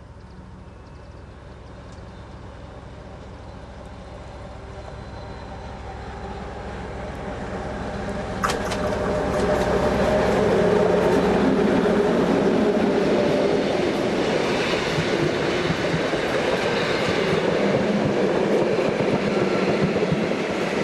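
Soviet-built DR V200 (M62 'Taigatrommel') diesel locomotive hauling passenger coaches, its engine growing steadily louder as it approaches and passes close by about ten seconds in. A sharp click comes just before it passes. After that comes the loud rumble and clatter of the coaches' wheels on the track.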